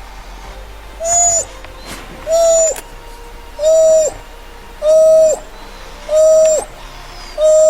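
A bird's hooting call: one level note, dipping at its end, repeated evenly about every second and a half, six times.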